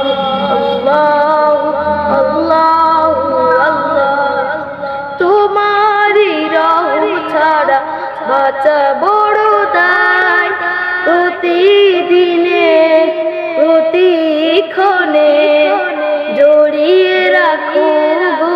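A boy singing a Bengali Islamic devotional song (gojol) in long, drawn-out melismatic lines, his voice sliding between held notes.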